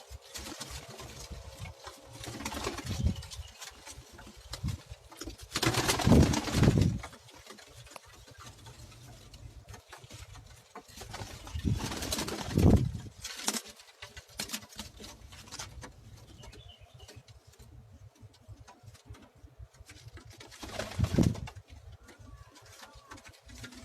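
Domestic pigeons cooing in several separate bouts, with quieter stretches between them.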